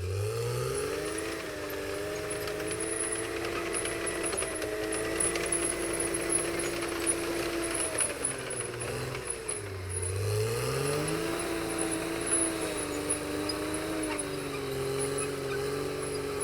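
CAT D6R XL bulldozer's diesel engine running steadily. Twice, once at the very start and again about nine seconds in, its speed sags hard and climbs back up, as when the dozer takes and then sheds a load. Light rattling runs alongside it.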